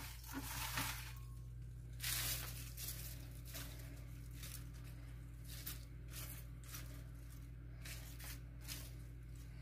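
Rustling and crackling of fresh mixed salad greens being pulled apart by hand and scattered into a baking dish, in irregular bursts, heaviest in the first second and again about two seconds in. A low steady hum runs underneath.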